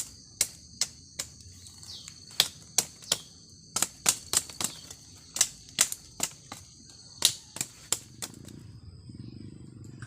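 Sharp knocks of chopping, irregular, about two or three a second, over a steady high drone of insects.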